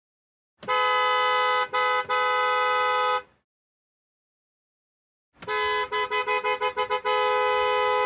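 Car horn honking: a long blast of about two and a half seconds, broken twice very briefly. After a few seconds of silence comes a run of about eight quick toots that leads straight into a long held blast.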